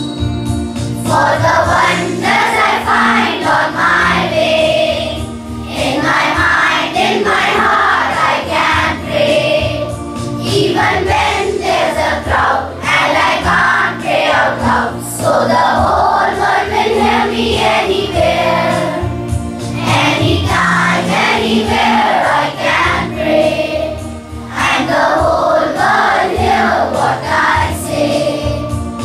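Children's choir singing a morning prayer song together.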